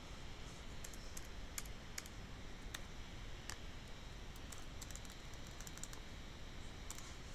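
Computer keyboard typing: scattered, irregular key clicks over a faint steady background noise.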